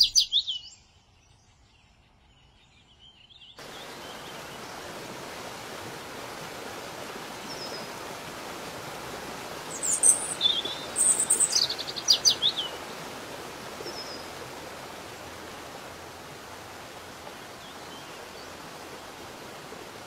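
Steady rushing of a waterfall, coming in suddenly a few seconds in after a short near-silent gap. Songbirds chirp over it, with a cluster of quick chirps and short falling calls about halfway through.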